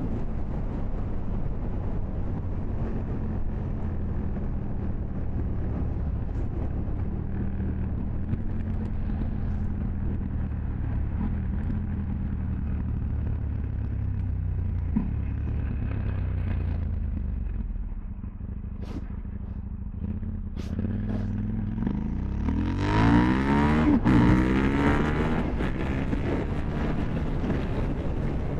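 KTM 790 Duke's parallel-twin engine running under way at a steady pitch, easing off about two-thirds of the way in, then a louder stretch with the engine pitch sweeping up and down before settling again.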